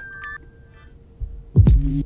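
Software instrument preset sounds auditioned one at a time: a pitched note dies away in the first half second, then a deep thumping hit with a short low tone about one and a half seconds in.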